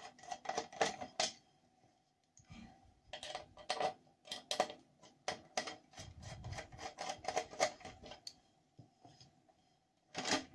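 Quick runs of small, sharp clicks and rattles from hands working the carbon wing's centre joint and push-rod linkage of a Vortex 3 hand-launch glider, in three bursts with short pauses between, over a faint steady hum.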